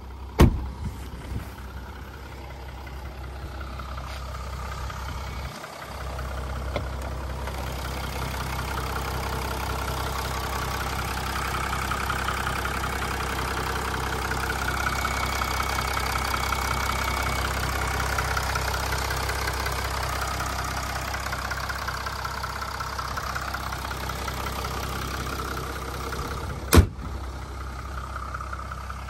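Mercedes-Benz E350d's 3.0-litre V6 diesel idling steadily, its clatter louder in the middle while close to the open engine bay. A car door slams just after the start and the bonnet slams shut near the end.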